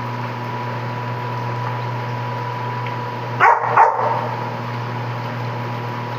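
A Labrador barking twice in quick succession about three and a half seconds in, over a steady mechanical hum.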